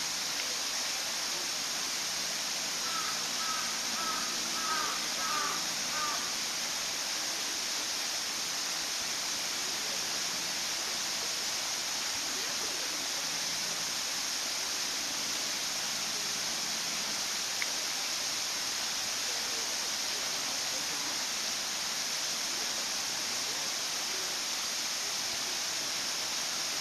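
Steady rushing of running water. About three to six seconds in, a brief series of short high calls sounds over it.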